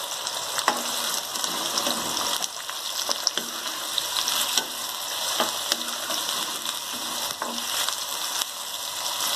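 Sliced onions sizzling in hot oil in a metal kadhai, being browned, with a wooden spoon stirring them and scraping and knocking against the pan about once a second.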